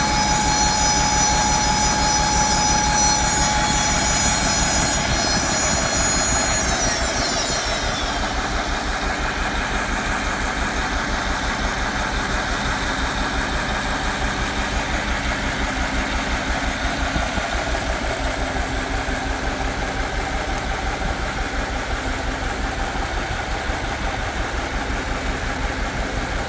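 A machine buzzing steadily with a fast, even pulse. A set of high whining tones glides down and fades out about seven seconds in, leaving the lower buzz running on.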